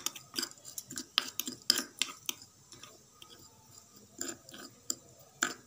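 Metal spoon clinking and scraping against a small ceramic bowl while mashing a coarse, lightly oiled spice mix. Irregular taps and scrapes, busiest in the first two seconds and a few scattered ones later.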